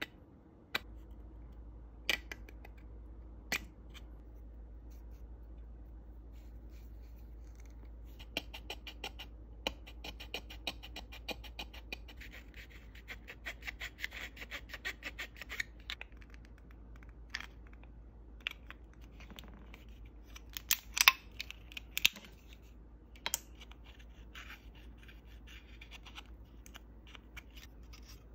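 A thin hobby blade scraping and scribing along the edge of a thin white styrene plastic model part: a long run of rapid small scratching strokes midway, with scattered sharp clicks as the part and tools are handled. A faint steady low hum sits underneath.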